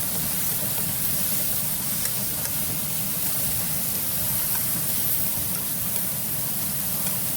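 Kitchen exhaust fan running with a steady hiss, over zucchini sizzling in a frying pan.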